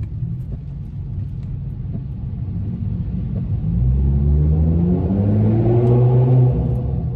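Car engine revving up under acceleration, heard from inside the cabin while driving through a tunnel: after a few seconds of low road rumble, the engine note climbs steadily for about three seconds and becomes loud, then eases off near the end.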